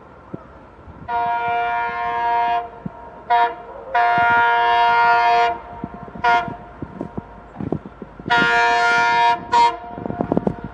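Multi-tone air horn of an EMD WDP4D diesel locomotive sounding a long blast followed by a short toot, three times over. A clatter of knocks builds near the end.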